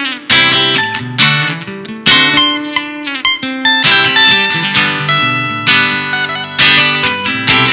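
Solo acoustic guitar playing an instrumental piece: sharp plucked chords about twice a second over ringing bass notes.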